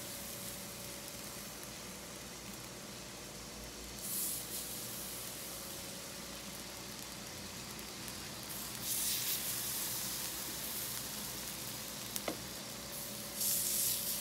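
Tortita batter of masa, egg and herbs sizzling on a hot ungreased griddle, a steady frying hiss that surges louder three times as fresh batter is spooned on. A single sharp click a little before the end.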